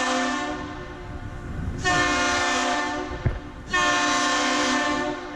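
A deep, loud horn sounds in a salute pattern: a long held blast ending about half a second in, then two shorter blasts of about a second each. A brief thump falls between the two short blasts.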